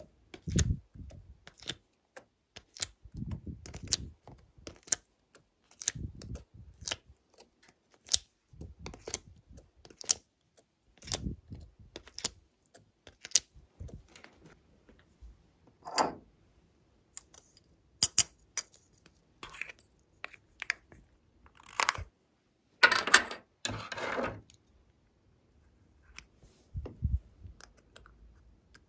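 Glossy slime being pressed and stretched by hand: many sharp clicks and pops from trapped air, with soft low squelches. Just past two-thirds of the way in comes a short, louder burst of crackling.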